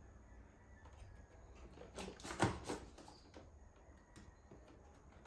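Cardboard toy packaging being handled: a few faint taps and rustles about two seconds in, over a low steady hum.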